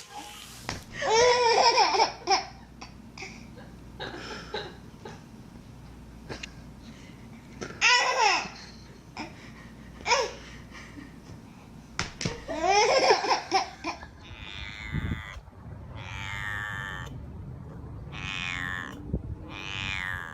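A baby or small child laughing in several high-pitched bursts of giggles, with a few more high calls over the last few seconds.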